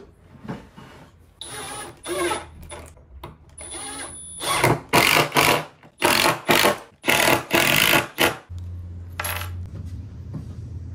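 Cordless drill/driver driving screws into a teak table's wooden frame in a series of short spurts, some with a high motor whine.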